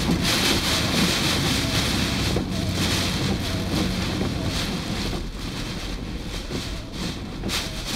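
Typhoon wind blowing hard across the microphone in gusts, a loud roar that swells and eases.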